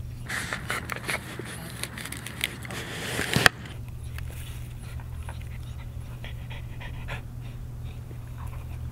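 Yellow Labrador puppy panting hard for the first three and a half seconds, then stopping suddenly. After that, faint scattered clicks and crackles as it chews a mesh bag, over a steady low hum.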